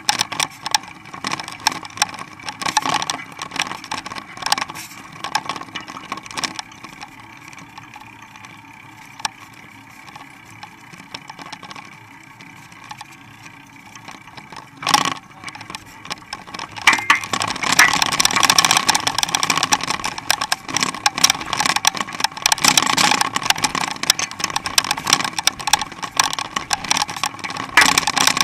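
Mountain bike rolling along a paved street, with rattling and knocking from the bike and a rush of tyre and wind noise. There is one sharp knock about halfway through, and it gets louder a little after halfway.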